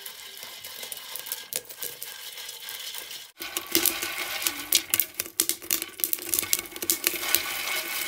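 Maize kernels roasting and popping in a clay pot over a wood fire, rattling and scraping as a bundle of sticks stirs them, with many sharp crackling clicks. The sound cuts off abruptly about a third of the way in and comes back louder and busier.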